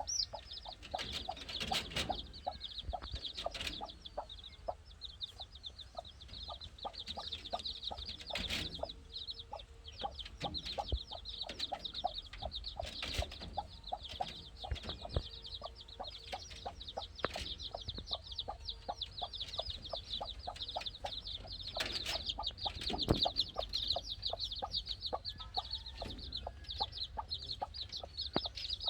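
A group of young chicken chicks peeping continuously, their rapid high cheeps overlapping, with a few sharp knocks among them.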